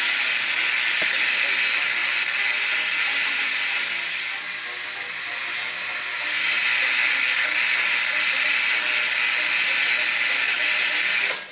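High-frequency sparks hissing from a tuned coil on the cauterizing terminal of a 1930s diathermy machine running at 29 megacycles: a loud, steady hiss that cuts off suddenly near the end.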